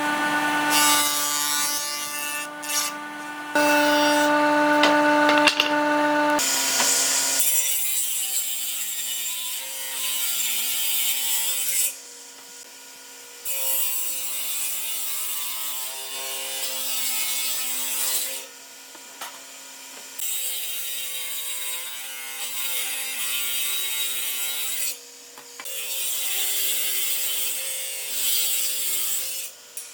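A handheld electric power tool is running and working wood in several passes, with short pauses between them. Its motor hum drops to a different pitch about a quarter of the way in.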